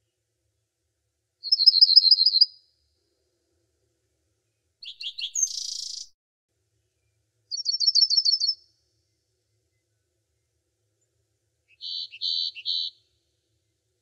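A songbird singing in four short phrases separated by silence: a rapid trill of high notes, a buzzier phrase, another rapid trill, and near the end three short buzzy notes.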